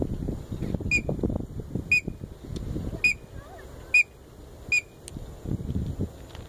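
Five short, sharp whistle pips about a second apart: a handler's recall whistle calling a free-flying white-breasted woodswallow back to the hand. Low wind rumble on the microphone runs under the pips, loudest in the first half.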